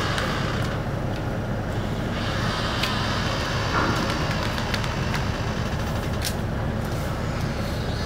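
Steady low engine rumble from the car ferry Okesa Maru as it berths, with a few faint ticks.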